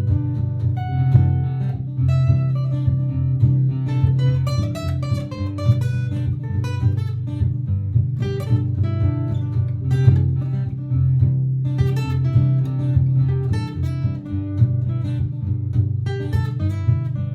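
Martin GPCPA4 acoustic guitar playing quick plucked notes over a steady strummed chord backing looped on a looper pedal.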